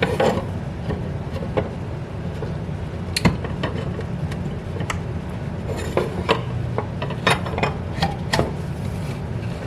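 Scattered knocks, clicks and scrapes as a panel held by a couple of brad nails is worked loose and pulled away, over a steady low hum.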